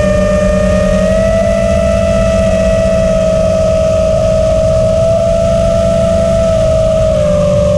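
FPV quadcopter's four brushless motors (T-Motor F40 Pro II, 1600 kV) spinning three-blade 6-inch props at a steady cruising throttle: a constant high whine that dips slightly in pitch near the end. Wind on the onboard camera's microphone adds a low rumble underneath.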